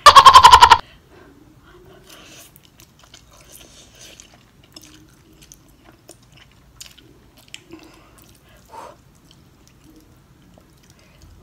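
A short, very loud buzzing burst right at the start, then a person quietly chewing and slurping spicy instant noodles, with faint scattered mouth sounds.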